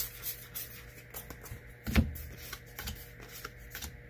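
Magic: The Gathering trading cards handled and flipped through by hand: a run of light clicks and slides of card stock, with one louder knock about two seconds in.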